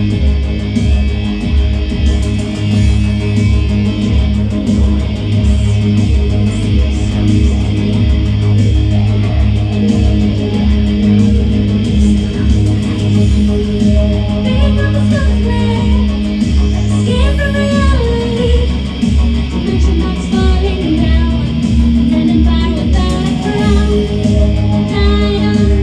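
Electronic-industrial band rehearsing: an electric guitar playing over synth chords and a steady pulsing low beat of about two a second. A singer's voice comes in a little past the middle.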